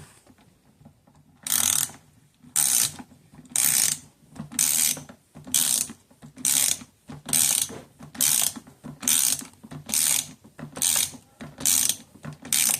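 Ratcheting screwdriver clicking in a regular series of short bursts, about one a second, as a screw on the RC car is tightened down stroke by stroke.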